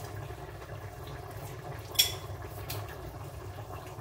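Steady low kitchen background noise, broken about two seconds in by one sharp clink that rings briefly, with a fainter click shortly after, from things being handled on the counter.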